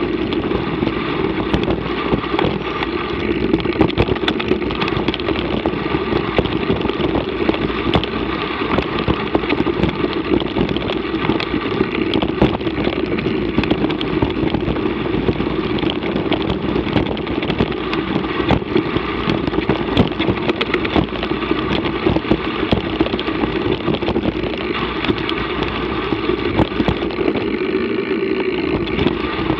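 Mountain bike riding along a rough dirt track: a steady muffled rumble of tyres and wind with constant small rattling clicks from the bike.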